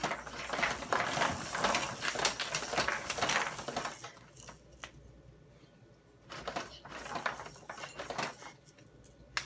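Hard plastic toys on a baby activity centre clicking and rattling as a baby bats and pulls at them, in two spells with a quieter gap of about two seconds in the middle.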